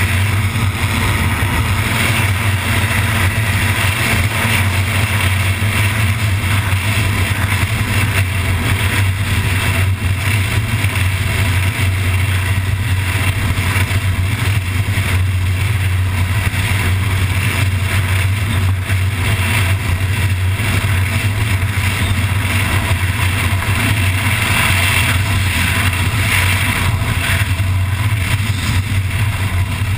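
MTO Sport gyroplane's engine and pusher propeller running steadily with a strong low hum, heard through heavy wind buffeting on a camera hanging loose by its strap from the tail.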